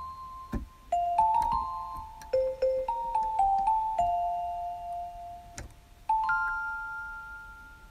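Background music: a slow melody of single bell-like struck notes, each ringing and fading, ending on a last note that dies away.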